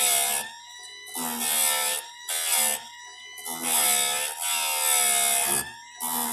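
Chicago Electric electric chainsaw chain sharpener grinding a chain tooth: the motor whines steadily while the grinding wheel is brought down onto the tooth again and again, with a loud rasping burst of grinding about once a second, its pitch wavering under load.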